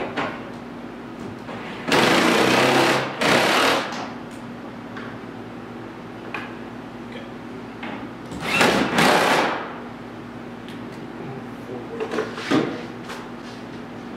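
A power tool run in four short bursts, in two pairs of about a second each, with a few sharp clicks near the end.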